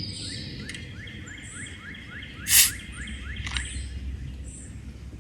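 A songbird calling a rapid run of short rising chirps, with a brief loud rushing noise about halfway through.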